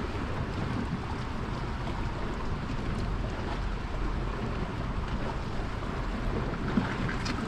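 Gale-force wind buffeting the microphone in a steady low rumble, with the rush of the sea behind it.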